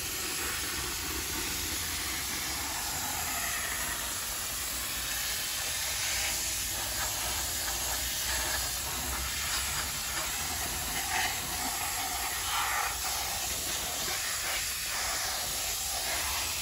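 Grant's handheld steam cleaner jetting 200-degree steam onto a dirty alloy wheel, a steady unbroken hiss that keeps going for the whole stretch.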